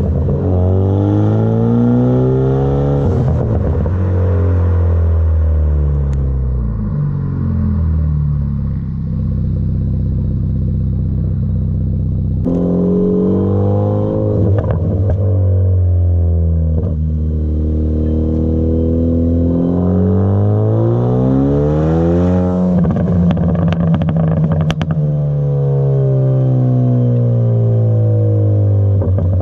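2015 Hyundai Veloster Turbo's 1.6-litre turbocharged four-cylinder heard at the tailpipes through a Magnaflow aftermarket exhaust. The engine accelerates and lifts off several times, its pitch climbing and then falling. Bursts of crackling pops come on two of the lift-offs, a tune made to give pops and bangs on the overrun.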